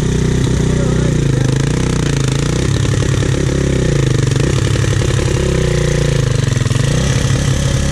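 Suzuki LTZ-400 sport quad's single-cylinder engine running under load as it tows a stuck car on a strap, its note rising and falling several times with the throttle.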